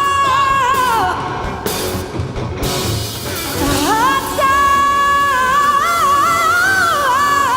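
Live rock-band performance: a female singer belts a long held high note over drums and band. About a second in the note drops away, and after a short stretch of drum hits the voice slides up into another long held note, with a wavering run near the end.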